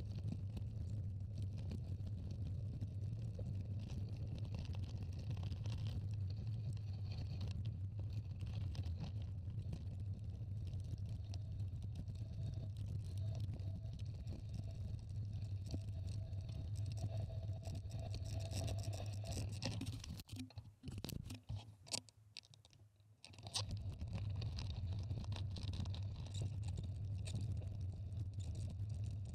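Mountain bike rolling fast downhill on a gravel trail, heard from a camera riding along on the bike or rider: a steady low rumble with gravel crunching and rattling. About twenty seconds in the noise drops away for some three seconds, broken by a few sharp clicks, then resumes.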